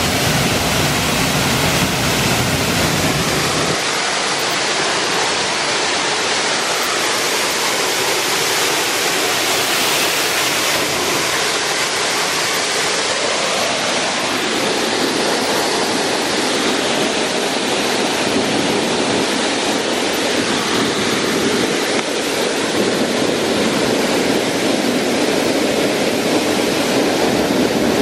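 Small woodland waterfall pouring onto rock into its plunge pool: a steady rush of falling water.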